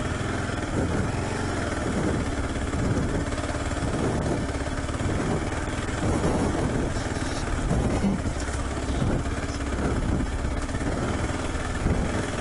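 Adventure motorcycle engine running at low revs, its pitch swelling and easing as the rider works the throttle up a rocky dirt trail.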